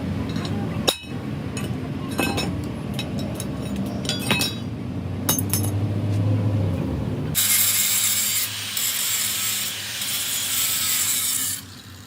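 Truck repair work: tools clicking and knocking on metal over a low rumble, then a loud, steady hiss for about four seconds that cuts off suddenly.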